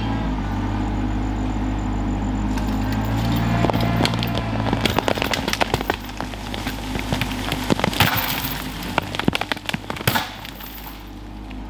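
Rural King RK24 compact tractor's diesel engine running steadily under load, with a run of sharp, irregular cracks and snaps starting a few seconds in and thinning out near the end: wood and roots giving way as the stump is pulled through the snatch blocks.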